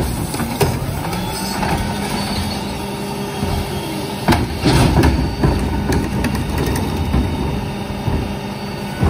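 New Way rear-loader recycling truck idling steadily while carts are tipped into its hopper: plastic carts knock against the hopper edge and recyclables clatter in, loudest about four to five seconds in.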